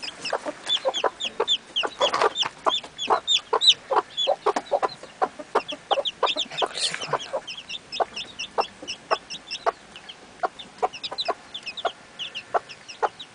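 Frizzle Cochin hen clucking to her chicks in short repeated clucks, while her two chicks peep over it in quick, high calls.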